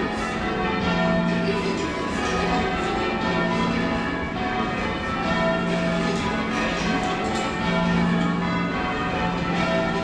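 A ring of eight church bells (tenor 15¾ cwt in F, cast by John Warner, 1858) being rung full circle in change ringing. The bells strike one after another in a steady, unbroken run, their tones overlapping.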